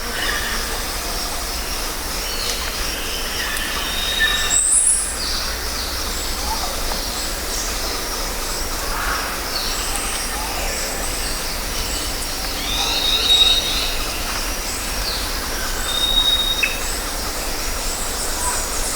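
Jungle ambience: a dense, steady chorus of insects and birds, with short chirps and calls scattered through it and several clear, held high whistles, the loudest call about four seconds in.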